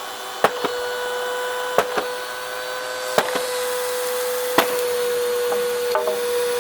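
Vacuum cleaner motor running with a steady whine, broken by sharp clacks every second or so, some in close pairs.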